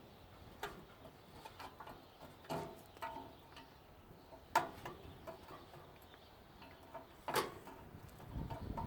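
Scattered metallic clinks and knocks from parts and hand tools being handled while dismantling a central air conditioning unit, several separate strikes a second or more apart, some with a short ring. Two louder knocks come about halfway through and near the end.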